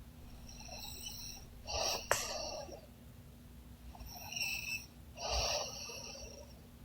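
A sleeping woman snoring: noisy, wheezy breaths come every second or two, the loudest about two seconds in with a sharp snort-like click.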